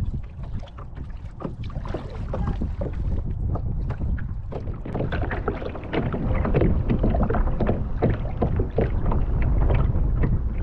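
Kayak paddling on open water: irregular splashing and water sloshing at the hull, with wind rumbling on the microphone. The splashing gets louder and busier about halfway through.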